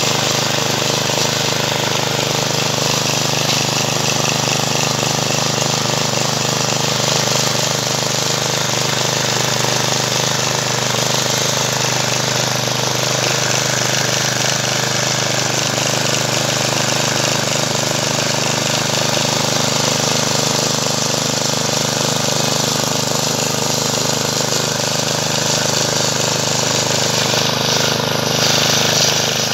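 GeoTech GT 430 garden tiller's 161 cc OHV four-stroke petrol engine running steadily while its rotating tines dig through soil.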